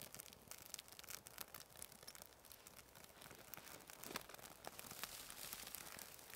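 Freshly lit birch bark burning and crackling: a quick, irregular run of small sharp pops and ticks, with one louder pop about four seconds in.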